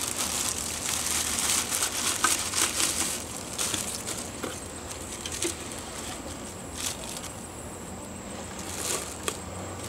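Clear plastic wrap crinkling and rustling as it is pulled off a car-audio midrange speaker and its grille, busiest over the first three seconds.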